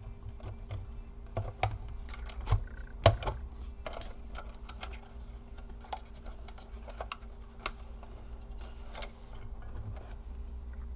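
Irregular clicks and light knocks of plastic and metal laptop parts being handled as the Dell Latitude E4310's display assembly is fitted back onto the base, with the sharpest knocks about two and a half and three seconds in.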